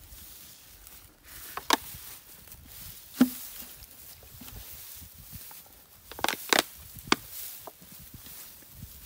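Rustling and footsteps in dry grass, broken by several sharp knocks and clicks: one about a second and a half in, the loudest about three seconds in, and a close pair at about six seconds.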